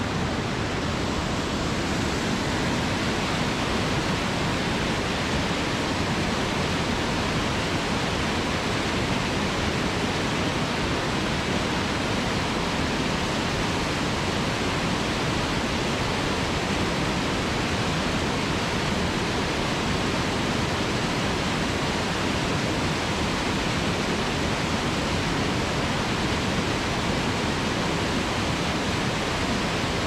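Small forest waterfall, a creek cascading steeply over rocks, giving a steady, even rush of water that does not change.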